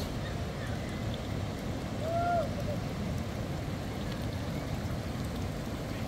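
Wind buffeting the microphone outdoors: a steady low rumble of noise, with one brief short call about two seconds in.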